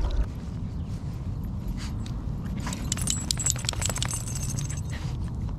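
Small metal pieces jingling for about a second and a half, a little under three seconds in, over a steady low rumble.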